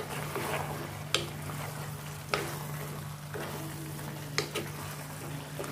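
Wooden spatula stirring eggplant slices into a sizzling masala in a pressure cooker pot, with a few sharp knocks of the spatula against the pot. A steady low hum runs underneath.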